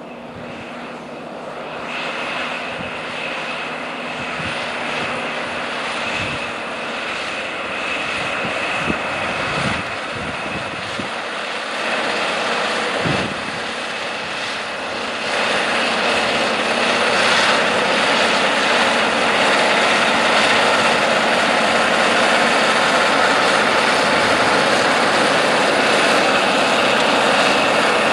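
John Deere 9R-series four-wheel-drive tractor's diesel engine running under heavy load while pulling a chisel plow through the soil: a steady drone with a thin high whine, getting louder over the first half.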